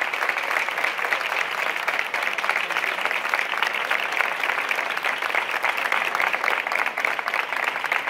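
Crowd applauding, with the band members joining in: dense, sustained clapping at a steady level.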